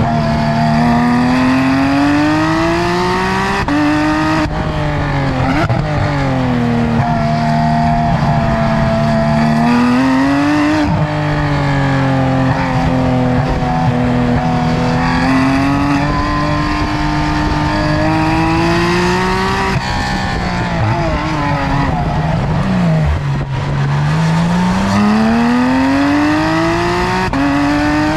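Naturally aspirated 4.0-litre flat-six of a 991.2 Porsche 911 GT3 RS with modified headers, heard loud at the exhaust, driven hard on track. Its pitch climbs under acceleration, steps down at upshifts, and sags as the driver lifts. There is a run of falling downshifts about two-thirds of the way through, and it climbs again through an upshift near the end.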